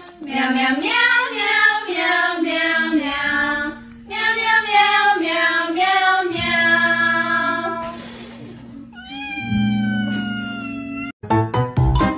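A tune sung in repeated meows over long held backing notes. About a second before the end it cuts sharply to a different tune with a clicking beat.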